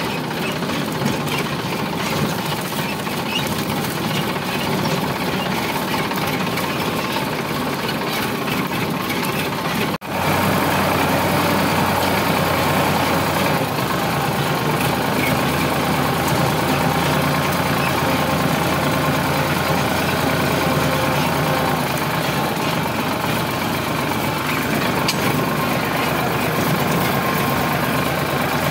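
Sonalika tractor's diesel engine running steadily as the tractor drives along, heard from the driver's seat. About ten seconds in the sound drops out for an instant and comes back louder.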